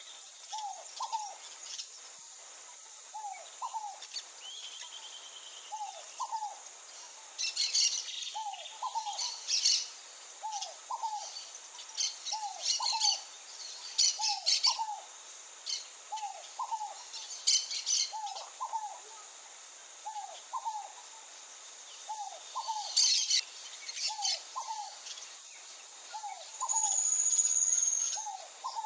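Birds calling: a short, low two-note call repeated about once a second, with scattered bursts of high chirping. A long, high whistled note near the end is the loudest sound, and a faint steady high tone runs underneath.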